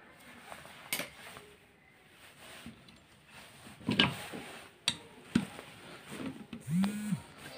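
Scattered clicks and taps of small metal parts and a screwdriver handled on an opened vacuum cleaner motor housing during reassembly. Background music begins near the end.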